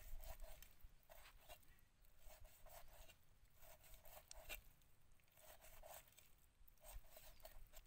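Cleaver slicing raw pork on a wooden chopping board: faint, repeated cutting strokes about once a second, each a short rasp through the meat ending in a light knock on the board.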